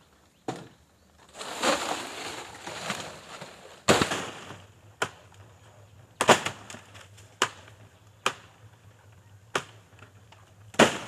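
Sharp chopping cracks from the crown of a palmyra palm as a climber hacks at the nungu fruit bunches: about nine strikes at irregular intervals, with a stretch of rustling about one and a half seconds in.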